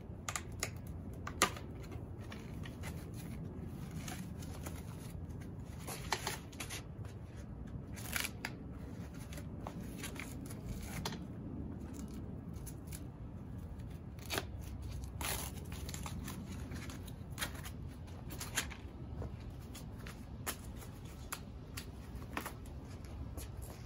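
Bolt cutter snipping through the bike's packaging: sharp clicks and snips at irregular intervals a few seconds apart, with handling and rustling of packaging between them.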